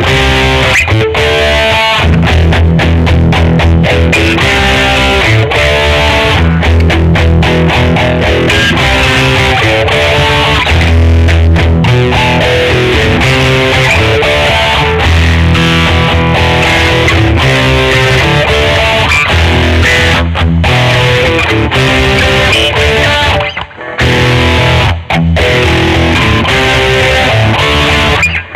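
Schecter Omen 6 electric guitar played through a distorted amp or effects patch, riffing continuously with a heavy low end. It stops briefly for about half a second near the end.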